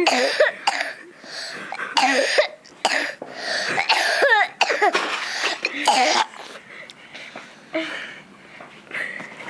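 A young boy with asthma coughing hard in a string of fits, about seven loud coughs in the first six seconds, some with a voiced, throaty edge, then fading to weaker coughs and breaths.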